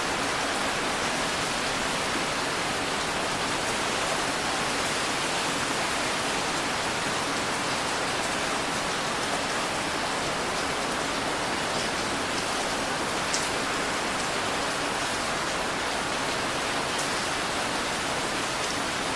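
Steady rain hiss, even and unbroken, with a couple of sharper drop ticks in the second half.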